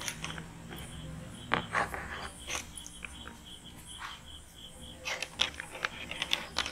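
Plastic stick-lids being pressed onto filled popsicle moulds in a plastic stand: scattered clicks and knocks, clustered near the end, over the on-and-off chirping of crickets.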